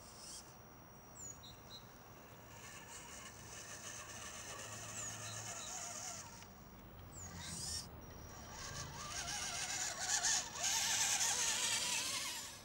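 Electric RC rock crawler with geared portal axles climbing rock, its motor and gears whining in a pitch that wavers up and down with the throttle. It grows louder in the last few seconds as the truck comes close.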